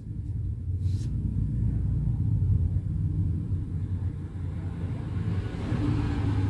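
A steady low rumbling hum.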